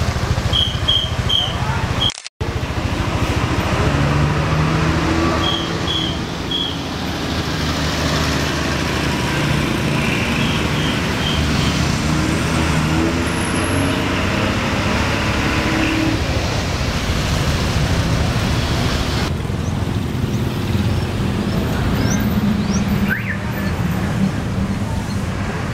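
Street traffic with large buses' diesel engines running as they pull past. Three sets of three short, high chirps come through near the start and middle. The sound cuts out briefly about two seconds in.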